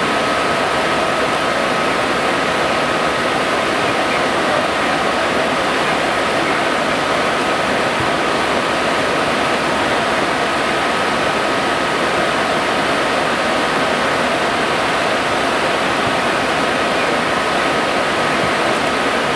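Steady rushing airflow noise inside an MD-80 airliner's cockpit in descent, with a steady high whine running through it.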